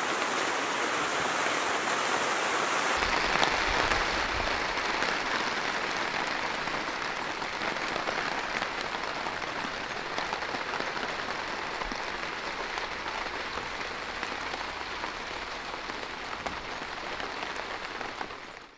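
Steady rain falling, a dense even hiss that changes character about three seconds in and slowly grows quieter.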